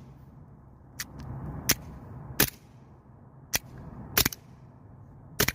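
Gas blowback airsoft 1911 pistol: a series of sharp shots and metallic clicks from the slide and hammer, about eight in all, unevenly spaced and two of them louder than the rest. The slide locks back after every shot even with BBs left in the magazine, a fault the owner cannot explain.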